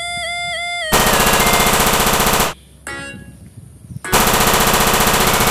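Battery-operated toy blaster pistol's electronic sound chip playing its machine-gun effect: two bursts of rapid synthetic gunfire, each about a second and a half long, with a short gap between them. The first burst follows a few stepped electronic notes.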